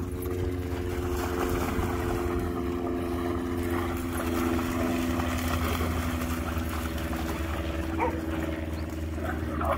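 A motor engine running at a steady, unchanging pitch.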